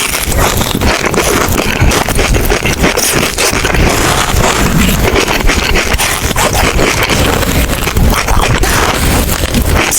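Close-miked chewing of mochi: a dense, continuous stream of sticky, wet mouth clicks and smacks.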